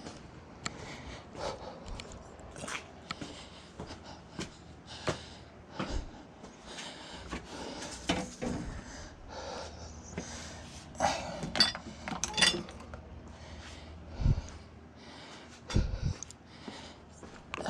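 Scattered clicks and clatters of objects being handled, with breathing, and two dull low thumps near the end.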